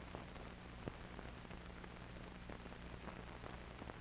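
Faint hiss with scattered crackles and pops from an old film soundtrack, over a steady low hum.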